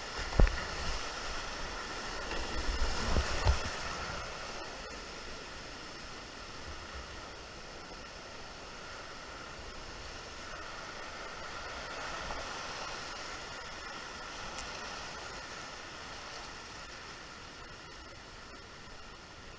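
Steady rush of a flooded creek's fast, muddy whitewater around a paddled boat, with a few louder splashes in the first few seconds.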